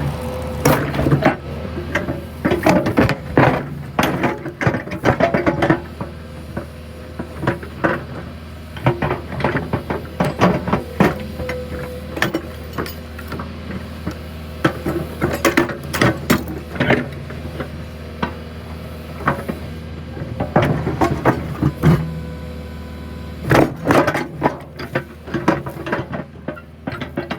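John Deere 310 backhoe's diesel engine running steadily, with frequent irregular metallic rattles and clanks from the machine as it works.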